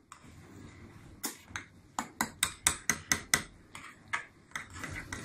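A spoon knocking against a glass mixing bowl as a thick slime mixture is stirred: a run of sharp clicks, about four a second, starting just over a second in and thinning out near the end.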